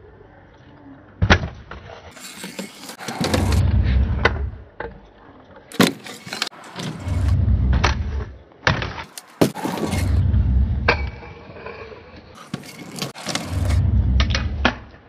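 Stunt scooter wheels rolling over skatepark ramps and concrete in several rumbling runs, broken by sharp clacks of the deck and wheels landing or striking metal edges.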